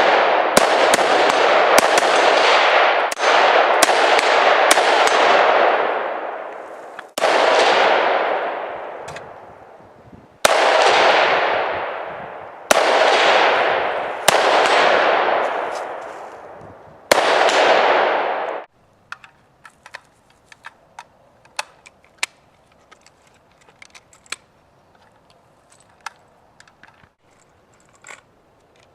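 AR-style rifles firing at steel targets: about a dozen shots, several in quick succession at first and then single shots a few seconds apart, each followed by a long echoing tail. The firing stops suddenly about two-thirds of the way through, leaving only faint scattered clicks.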